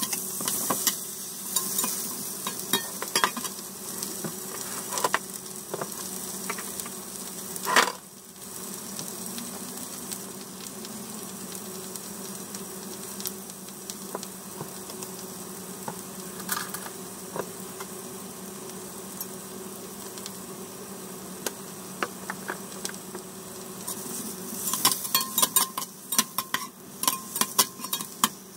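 Tomato wedges sizzling in a hot frying pan, with a metal spatula scraping and clicking against the pan as they are stirred and turned. Near the end comes a run of quicker spatula taps.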